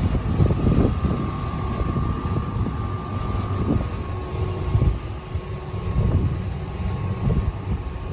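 Air conditioner condenser fans running, a steady mechanical drone with a faint steady whine, under irregular low rumbling surges.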